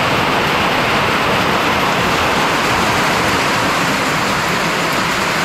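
Heavy rain pouring down onto a corrugated metal roof overhead, a steady, loud hiss that does not let up.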